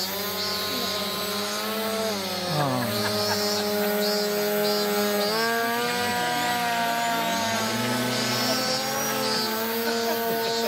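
Small RC seaplane's electric motor and propeller whining as it taxis on the water. The pitch drops about two seconds in, climbs again about halfway through, and dips a little near the end as the throttle is worked.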